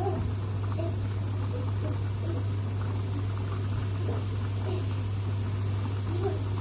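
Stovetop pressure cooker on a gas hob steadily hissing as steam escapes under full pressure, with a low steady hum underneath.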